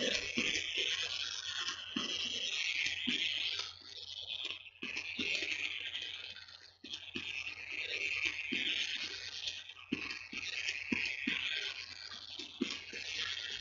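Low background noise: a steady hiss and low hum, with scattered soft clicks and scratchy sounds at irregular intervals.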